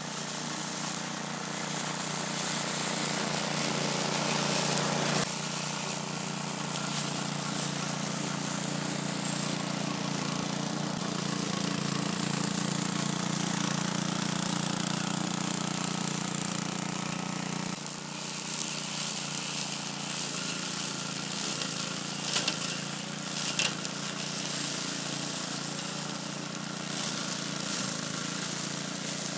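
Old walk-behind rotary lawn mower's small petrol engine running steadily while mowing grass and weeds. Its tone shifts abruptly twice, and a few sharp clicks come about three quarters of the way through.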